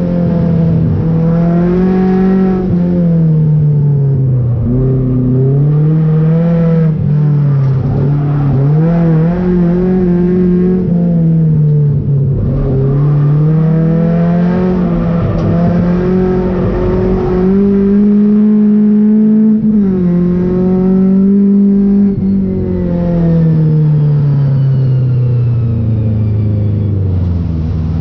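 Race car engine heard from inside its stripped cabin, revving up and down repeatedly through gear changes and corners. Near the end the revs fall away and settle low.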